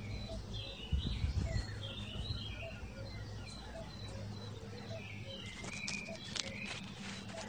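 Small birds chirping in short high phrases, over a faint call that repeats about twice a second. A few low bumps about a second in and some sharp clicks near the end.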